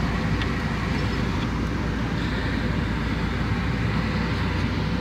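Truck engine idling with the air-conditioning blower running steadily, heard inside the cab: an even low rumble under a constant airy rush.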